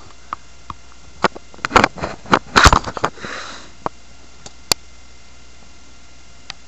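A small shaggy dog sniffing close to the microphone. A few short snuffles come in the first half, with scattered sharp clicks between them, then it goes mostly quiet.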